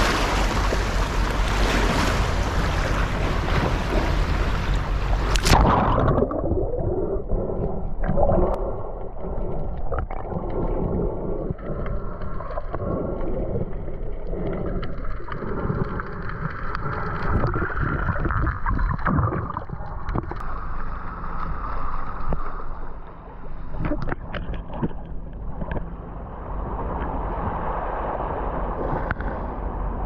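Water sound recorded in the sea. At first it is splashing surf and rushing water heard above the surface. About five and a half seconds in it cuts to a muffled underwater sound of gurgling water with many short clicks and knocks.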